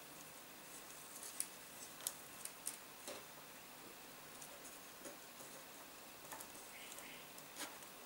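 Faint, irregular small clicks and rustles of fingers working waxed cord around beads while tying macramé knots, with the cord pulled tight near the end.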